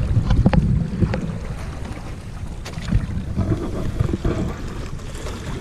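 Wind buffeting the microphone while water rushes and splashes along the hull of a Hobie Mirage Adventure Island sailing kayak under way, with a few short knocks and splashes.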